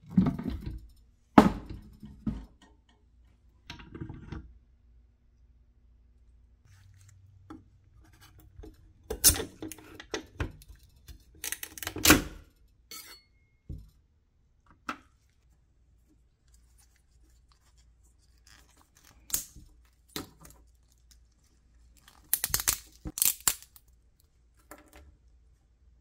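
Handling a resin 3D printer job: the plastic UV cover is lifted off, then cured resin parts are snapped and peeled off their supports on the metal build plate. Separate snaps, clacks and scrapes with quiet gaps between, the loudest about twelve seconds in and a quick cluster near the end.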